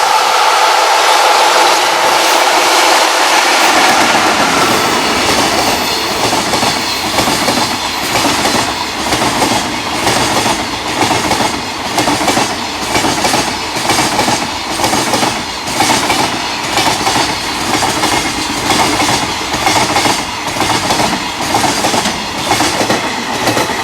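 Japanese electric freight train passing at speed: the locomotive's traction motors whine with steady tones at first, then the wagons clatter over the rail joints in a regular rhythm, about once a second.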